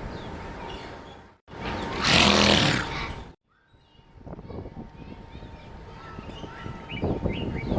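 A loud animal call lasting about two seconds, starting and stopping abruptly, set between stretches of outdoor background with birds chirping.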